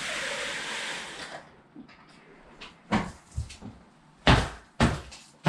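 Ikea Trippevals cordless cellular blind being pulled down, a steady fabric rustle and hiss of the pleated shade sliding that stops about a second and a half in. Then several heavy knocks about two a second, footsteps on a hard floor.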